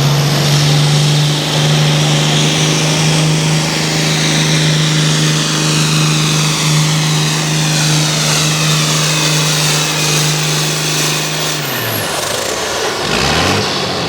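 Altered farm pulling tractor's engine running flat out at a steady pitch under load, with a high whine above it. Near the end the throttle is cut: the engine pitch drops and a high whistle falls away, then there is one short rev.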